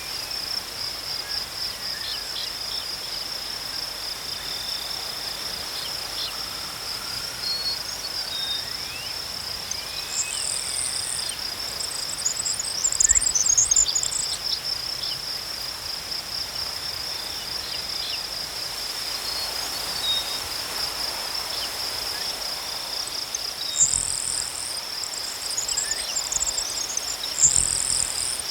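A steady, high, pulsing insect trill runs throughout, with a fainter second insect note beneath it. Birds chirp in two bursts, about ten seconds in and again near the end, over light wind in grass.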